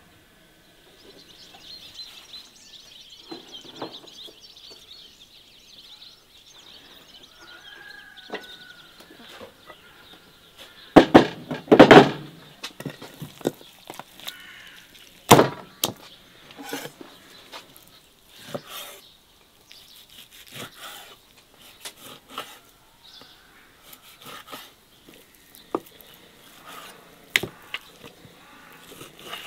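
A series of sharp knocks and clatters, the loudest a close cluster about eleven seconds in, over faint bird chirping.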